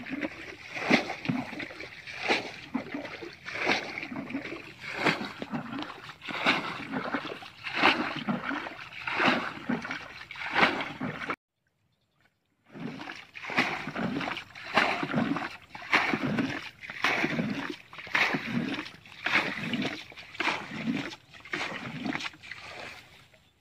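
Water being bailed out of a shallow muddy canal with a bucket: repeated scoop-and-splash strokes, about one every second and a half, as the canal is drained. The sound drops out completely for about a second near the middle.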